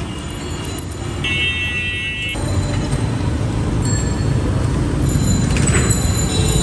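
Roadside traffic noise, a steady low rumble that grows louder partway through, with a short high-pitched tone about a second in.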